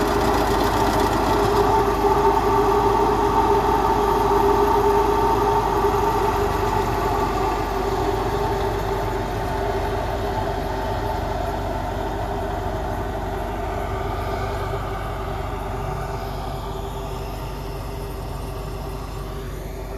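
Massey Ferguson 385 tractor's four-cylinder diesel engine running steadily under load as it pulls a maize planter, slowly fading as the tractor moves away.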